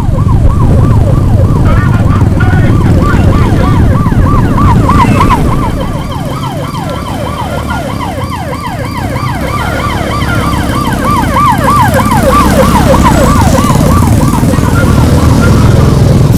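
Electronic siren yelping, a quick falling sweep repeated about three or four times a second, over the running engines of a group of motorcycles riding together.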